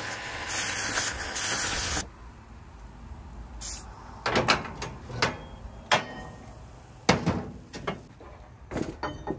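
Oxy-fuel cutting torch hissing loudly as it blows a hole through a thick steel bracket, cutting off suddenly about two seconds in. Then several sharp metal clanks and knocks as the cut steel bracket and torch are handled.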